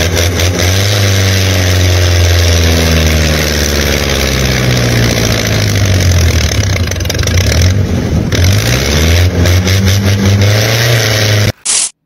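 Tractor engine running and revving, its pitch rising and falling unevenly. It cuts off suddenly near the end, followed by a quick run of short clicks.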